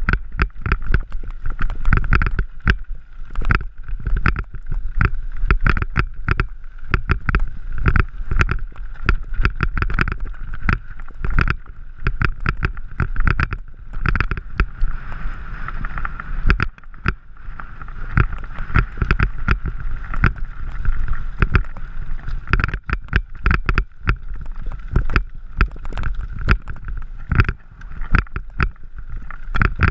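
Mountain bike rattling over a loose, rocky dirt trail: a dense, irregular run of clicks and knocks from the bike jolting on stones, under a steady hum.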